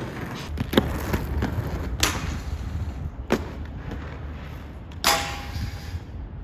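Inline skate wheels rolling over concrete with a steady low rumble, broken by several sharp knocks of skates striking ramps, rails or the ground. The loudest knock, about five seconds in, rings briefly.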